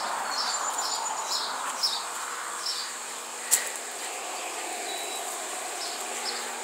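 A small bird chirping over and over, short chirps about two a second that stop after about three seconds and come back briefly near the end, over a steady high insect-like whine and outdoor hiss. A single sharp click about three and a half seconds in.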